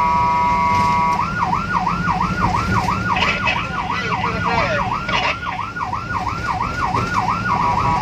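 Electronic emergency-vehicle siren on a vehicle responding to a fire call. It sounds a steady blaring chord of tones, then about a second in switches to a fast yelp that rises and falls about three times a second, over the steady hum of the vehicle's engine.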